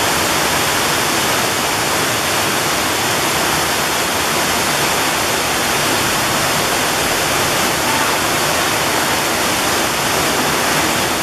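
Waterfall pouring into a pool: a steady, even rush of falling and splashing water with no breaks.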